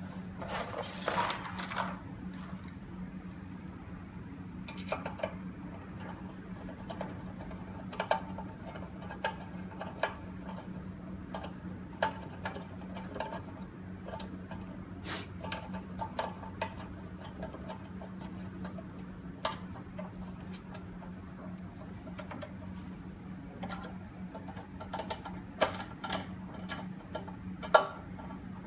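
Screws being driven by hand to fix a door lock's mortise into the door: scattered small metallic clicks and taps at irregular intervals, over a steady low hum.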